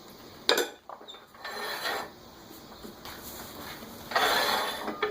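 Handling noises at a wood lathe: a sharp metal clank about half a second in, then short rubbing and scraping sounds, the loudest a scrape lasting about half a second just after four seconds in. The lathe motor is not running.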